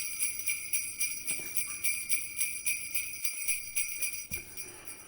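Jingle bells shaken in a steady rhythm, about three to four shakes a second, fading away near the end.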